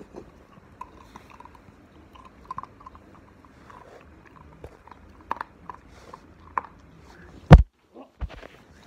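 Beagle puppy chewing a treat, with small crunches and clicks scattered throughout. About seven and a half seconds in comes a loud thump as the filming phone falls over, followed by a couple of smaller knocks.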